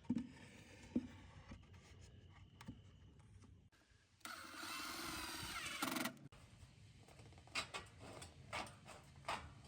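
A power tool runs for about two seconds, about four seconds in, its whine wavering in pitch, amid scattered knocks and clicks of work on sheet-metal roofing.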